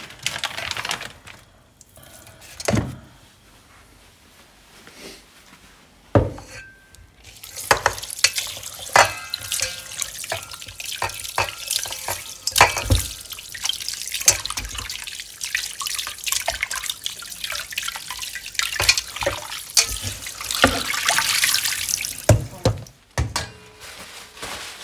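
Kitchen tap running into the sink while a piece of veal is rinsed under it, with splashing and small knocks from the meat being handled. A few knocks come first; the water runs from about seven seconds in and is shut off shortly before the end.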